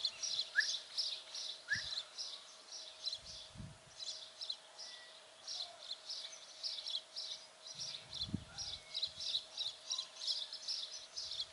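Outdoor ambience of birds chirping: a steady series of short, high chirps, several a second, with two brief rising chirps about a second in and a faint steady hum underneath. A few soft low thumps are mixed in.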